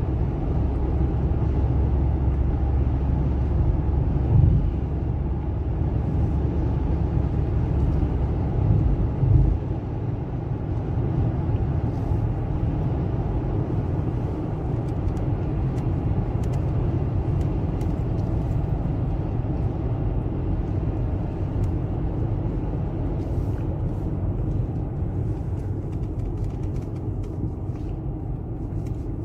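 Steady rumble of a car driving, heard from inside the cabin, with a couple of brief knocks; the deep rumble eases about ten seconds in.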